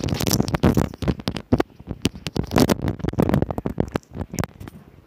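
Close rubbing and rustling on a phone's microphone, with rapid irregular clicks and knocks as the phone is handled.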